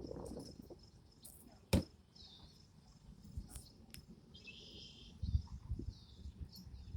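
Quiet outdoor ambience with no train horn: a single sharp click about two seconds in, a few faint high chirps, and some low thumps near the end.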